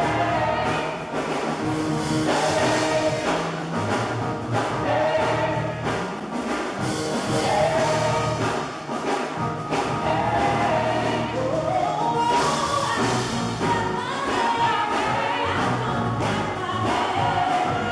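Live gospel worship music: a choir of voices singing with band accompaniment.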